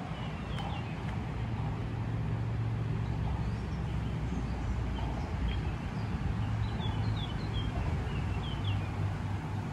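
Steady low rumble of a jet plane flying overhead, with small birds chirping in short high calls throughout.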